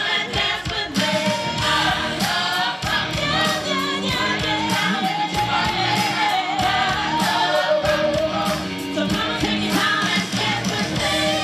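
Show music with singing voices over a steady beat.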